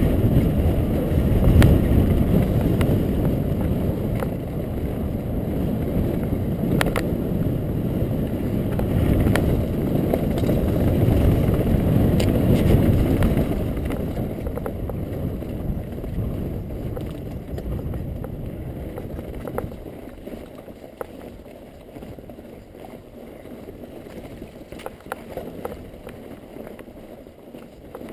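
Wind buffeting the microphone over the rumble of mountain bike tyres rolling down a rocky dirt trail, with scattered clicks and knocks from stones and the bike rattling. The rumble is loud at first, then eases off about halfway through and stays quieter.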